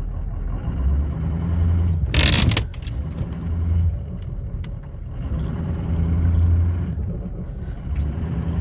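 Pickup truck engine revving in repeated surges under load, the plow shoving a fallen alder through snow. A short, loud scraping rush comes about two seconds in.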